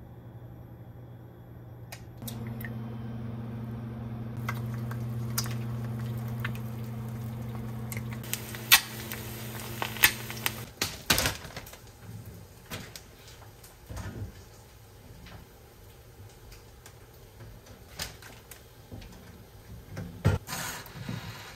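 An induction hob hums steadily while eggs fry in oil in a non-stick pan, hissing with sharp pops and crackles. The hum stops after about eleven seconds, leaving quieter kitchen clicks and knocks, and a toaster oven door clanks open near the end.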